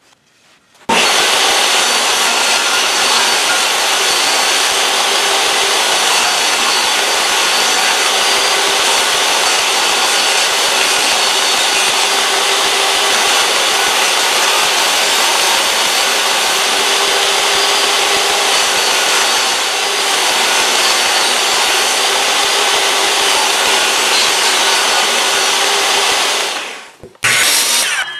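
Jobsite table saw running as it rips thin strips of wood along the fence. It starts suddenly about a second in, holds steady, and winds down near the end, followed by one short loud burst.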